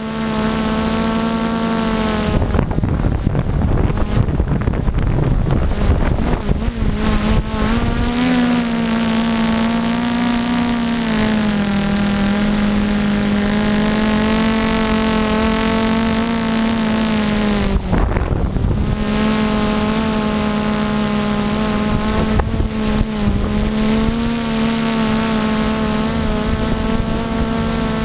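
Y6 multirotor's six brushless motors and propellers running with a steady hum in flight, with a thin high whine over it. The pitch wavers slightly as the throttle changes and dips briefly about eighteen seconds in. Wind buffets the microphone at times, hardest near the start and around the dip.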